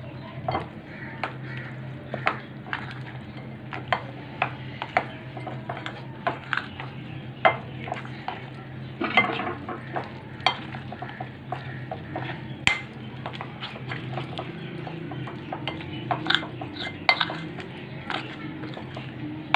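A spoon stirring a thick yogurt-and-spice marinade in a glass bowl: irregular clinks and scrapes of the spoon against the glass, sometimes several in quick succession, over a steady low hum.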